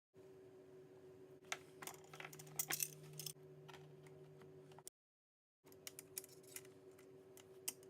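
Faint metallic clinks and ticks of bolts and small hardware being handled, bunched together around two to three seconds in, over a steady low hum. The sound cuts to dead silence for under a second about five seconds in.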